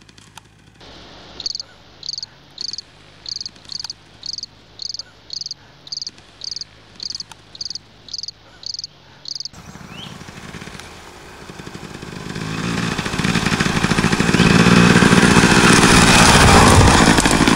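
An insect, likely a cricket, chirping steadily about twice a second over a faint low hum. After about nine and a half seconds the sound changes, and a motocross bike's engine grows loud as the bike rides close, loudest near the end.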